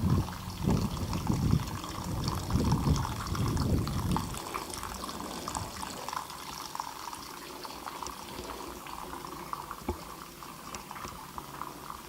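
Running water, a steady splashing and trickling, with irregular low rumbles during the first four seconds.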